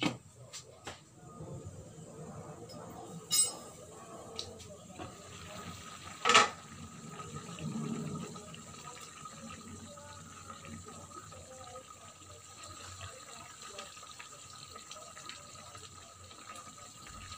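Chicken simmering in Sprite and oyster sauce in a metal pan, the liquid bubbling steadily, with two sharp clanks about three and six seconds in.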